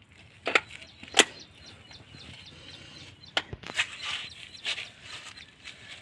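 Sharp clicks and knocks of a masonry drill bit being pushed and locked into the chuck of a corded rotary hammer, two loud clicks about half a second and a second in, then several lighter knocks as the tool is handled. The hammer itself is not running.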